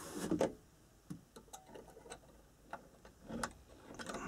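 Small sharp plastic-and-metal clicks and taps of fingers working a 31 mm festoon LED bulb into the spring clips of a car dome-light housing, with a louder rustle at the start and another a little past three seconds.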